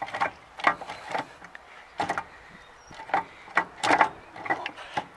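Irregular sharp knocks and clinks of metal parts being worked into a T-25 tractor's rear final-drive hub as it is reassembled with freshly greased new bearings, with a quick cluster of louder knocks about four seconds in.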